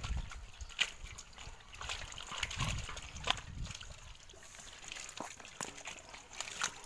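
Freshly caught pond fish slapping and flopping wetly in a metal basin as more are tipped in and handled by hand, in irregular short slaps with water splashing.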